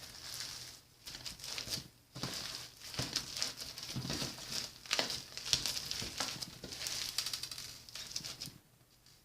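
Crunchy slime being squeezed and worked by hand, a dense run of crackles and small pops that stops shortly before the end.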